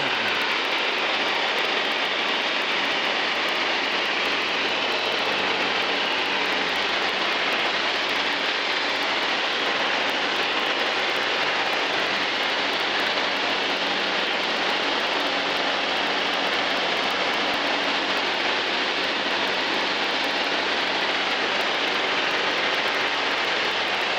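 Cabin noise of a Zenith STOL CH 750 light aircraft in level cruise: the engine, propeller and airflow make a steady, even rush with a faint low hum underneath.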